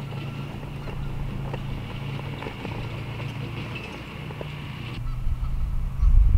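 Wind buffeting the microphone over a steady low hum. The buffeting grows into a loud low rumble near the end.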